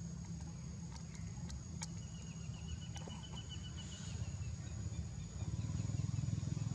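Outdoor ambience: a steady low rumble that grows louder near the end, a constant thin high-pitched whine, a few faint clicks, and a short rapid trill of high ticks between about two and four seconds in. There is no clear monkey call.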